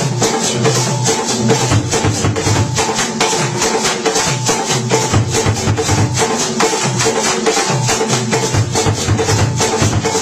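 Ewe drum ensemble playing: several tall wooden barrel drums, the lead struck with sticks and the others with hands and sticks, locking into a fast, steady interlocking rhythm with many strokes a second.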